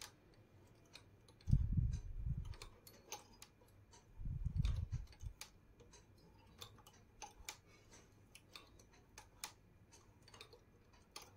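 Light irregular clicking of the knitting machine's metal latch needles and loops as stitches are formed by hand on the needle bed, with two dull low thumps in the first half.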